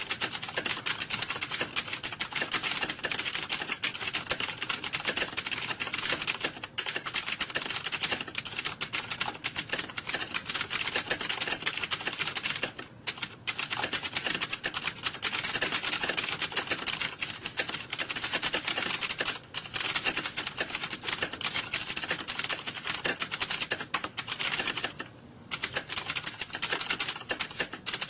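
Fast, continuous typing on a computer keyboard, the key clicks coming so thick they nearly run together, with two short pauses, about 13 and 25 seconds in.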